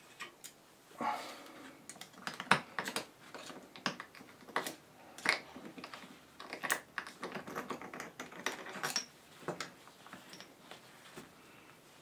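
Irregular light metallic clicks and rattles as a loosened nut, the bearing cup of an e-bike freewheel hub, is turned off its left-hand thread by gloved fingers and lifted away.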